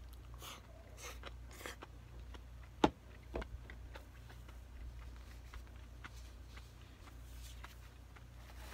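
Close eating sounds of a man chewing a mouthful of stir-fried vegetables, with a few short noisy mouth sounds in the first two seconds. About three seconds in comes a sharp click, the loudest sound, as the chopsticks knock against the food container, then a smaller one; a low steady hum runs underneath.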